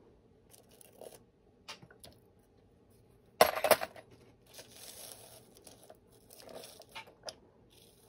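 Small glass pieces and a metal tool handled on a paper-covered work surface: a few light clicks, a sharp clatter about three and a half seconds in, then paper rustling and two more clicks near the end.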